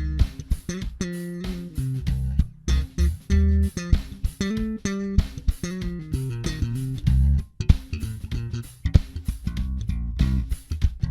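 Electric bass guitar with an active preamp circuit, played solo: a quick run of short, sharply attacked notes that jump around in pitch.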